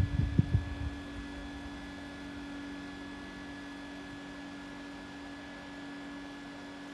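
Handheld rechargeable fan running at a steady speed, an even hum with a faint higher whine. For about the first second its airflow buffets the microphone in gusts, which then stop.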